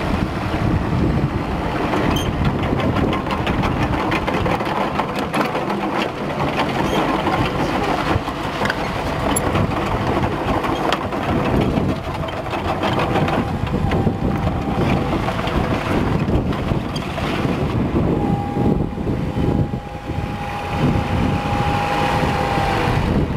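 Kubota U20 mini excavator's diesel engine running as the machine tracks down off a trailer and turns, with clanks and rattles from its tracks. A steady high whine joins in near the end.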